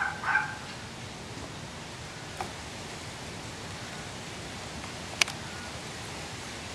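Two short pitched animal calls right at the start, then a sharp click about five seconds in, over a steady outdoor hiss.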